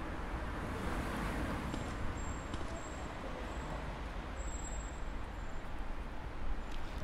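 Steady distant road traffic noise with a low rumble.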